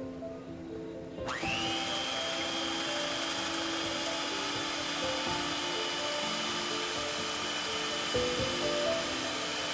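Electric mixer with a balloon whisk switched on about a second in, its motor spinning up with a rising whine that settles into a steady high-pitched running sound as it whips cream in a steel bowl. Background music plays throughout.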